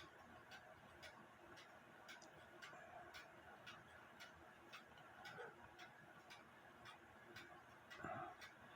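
A mechanical clock ticking faintly and steadily, about two ticks a second.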